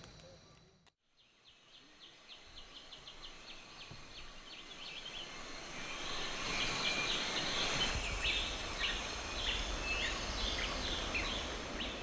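Borneo rainforest ambience fading in after a brief silence: many short chirping calls over a steady high hum, growing louder through the second half.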